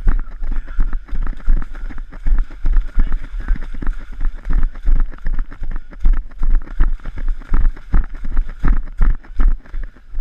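A runner's footsteps splashing and squelching through muddy puddles in a steady rhythm of about three strides a second, each landing a heavy thump.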